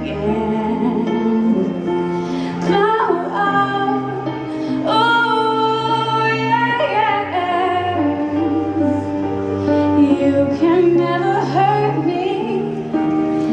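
A teenage girl singing a slow, powerful ballad solo, holding long notes with vibrato and sliding between pitches. Steady low accompaniment plays underneath.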